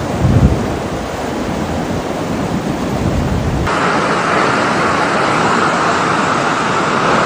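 Steady rushing of floodwater, with a brief low thump of wind on the microphone just after the start. About halfway through it cuts to a louder, brighter rush of a fast-flowing flood torrent.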